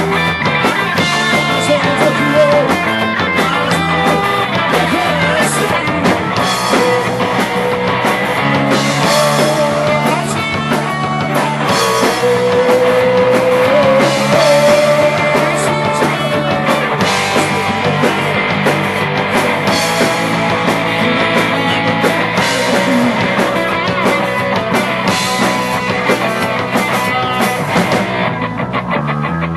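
Live rock band playing: electric guitars, bass guitar and drums with cymbals, loud and continuous, with a long held note about halfway through.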